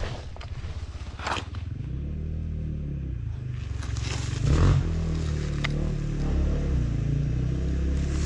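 A dirt-bike engine running at a low idle, its pitch rising and falling once about two seconds in, with short scrapes of gear on gravel as the fallen rider shifts.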